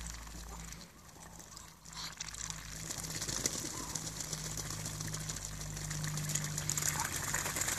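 Muscovy ducks dabbling in a shallow puddle: a rapid, wet crackling of bills working the water, growing louder about two seconds in, over a low steady hum.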